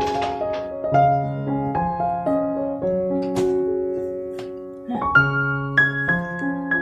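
Background piano music, a slow melody of held notes over a lower accompaniment, with a few light clicks or taps about half a second in, near the middle and near the end.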